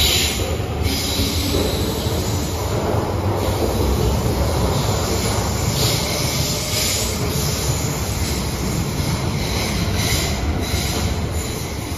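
Metro train running past along an underground station platform: a steady low rumble of wheels on rail, with a high hiss and screech that swells and eases every second or two, starting to fade near the end.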